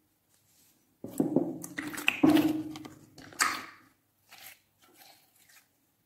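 Clear slime squelching and clicking as hands press and squeeze it, with wet pops of trapped air. The sound starts about a second in and is loudest over the next three seconds, then thins to a few softer squelches.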